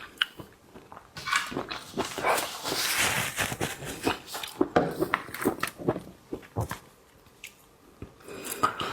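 Close-miked eating of large shrimp: dense crackling, clicking and wet mouth sounds from shell and flesh being bitten and chewed. It goes quieter for about two seconds near the end.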